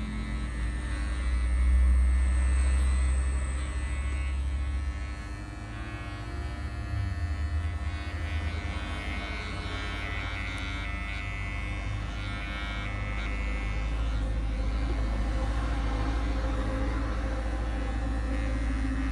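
Electric hair clipper running with a steady motor buzz while a baby's head is shaved.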